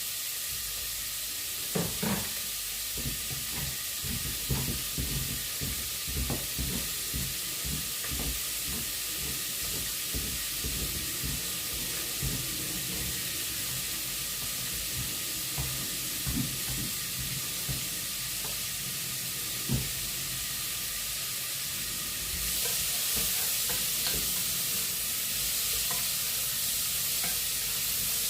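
Food sizzling in a hot frying pan while it is stirred, with irregular clacks and scrapes of a utensil against the pan for the first twenty seconds or so. About 22 seconds in, the sizzle gets louder.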